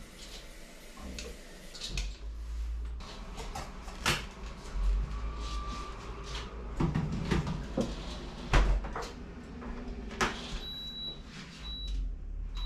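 Kitchen handling sounds while coffee is being made: cupboard doors, knocks and clinks. Near the end an appliance gives three short electronic beeps.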